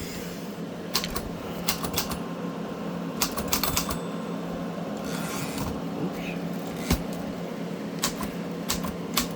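Remington 1040 typewriter keys being struck, with irregular single clicks and short quick runs of type slugs hitting and returning, over a steady low hum. The keys, freshly cleaned with isopropyl alcohol, are no longer sticking.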